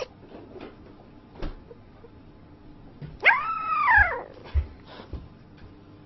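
A sleeping puppy whimpering in its sleep: one drawn-out whine about three seconds in that rises and then falls in pitch, with a few faint short snuffly sounds around it.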